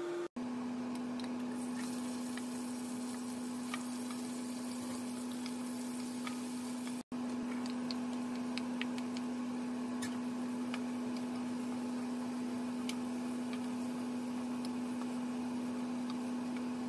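Vegetables frying in hot oil in a pot: a steady sizzle with scattered small crackles, over a steady low hum.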